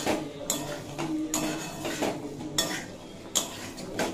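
Metal spatula scraping and knocking against a metal kadai as chicken, potatoes and peas are stirred and fried down together in spice paste, with about seven strokes at one every half to three-quarters of a second.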